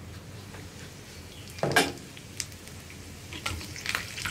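Thin coconut pieces tipped into hot ghee in a small non-stick frying pan, with one loud clatter against the pan about two seconds in. Near the end the ghee starts to sizzle and crackle around them.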